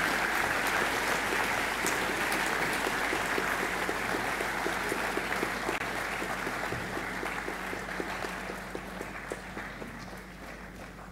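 Audience applauding, loudest at first and slowly dying away. Through the middle a steady run of single claps, about four a second, stands out above the rest.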